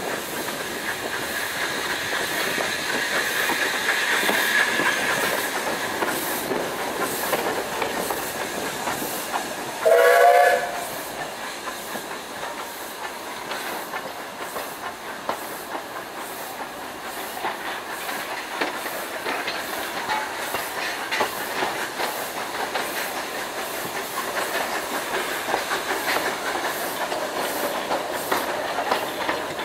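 Garratt NG.87 narrow-gauge steam locomotive hauling a train, heard from just behind it: steady running noise with the wheels clattering over the rail joints, and hiss. About ten seconds in comes one short blast on a steam whistle, rising slightly in pitch, the loudest sound of the stretch.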